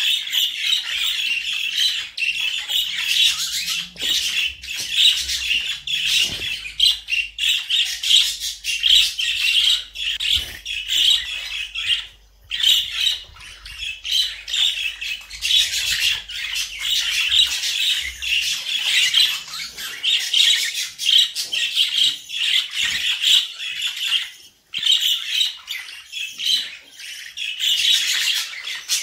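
Budgerigar warbling: a fast, unbroken chatter of chirps, squeaks and squawks that stops only briefly twice, about twelve and twenty-four seconds in.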